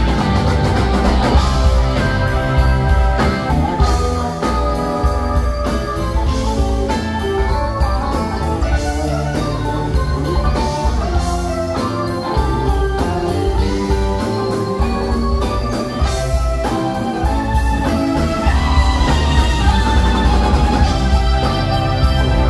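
Live rock band playing with electric guitars, electric bass and drums, heard from the audience.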